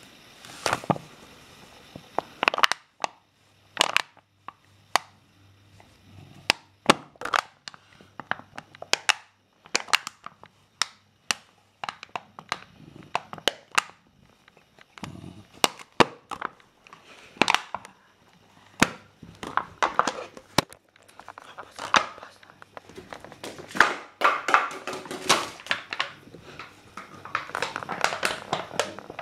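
A small dog chewing and biting an empty plastic PET bottle: an irregular run of sharp crackles and crunches of the plastic, growing into nearly continuous crinkling near the end.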